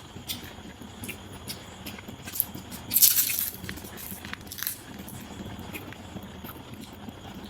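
Person eating biryani: scattered short clicks and smacks of chewing, with a brief loud crackling rustle about three seconds in.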